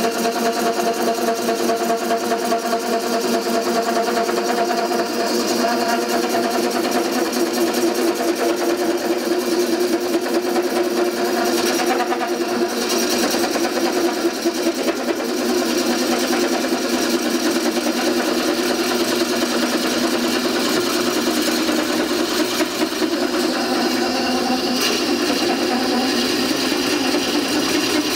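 The Mastodon, a home-built bowl coring machine, spinning a large wooden blank while its curved coring knife cuts into it: a steady motor hum under a continuous rough cutting noise.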